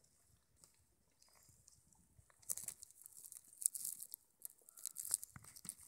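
Soft, irregular crunching and crackling of dry leaves and gravel, starting about two and a half seconds in.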